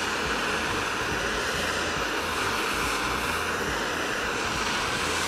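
Handheld gas torch burning with a steady rushing hiss as its flame heats the thread-locked nut on a hydraulic cylinder rod to loosen it.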